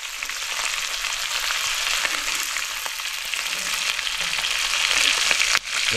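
Whole chadhaniche fish frying in hot oil in an iron tawa: a steady sizzle with crackling spatter from the whole pan.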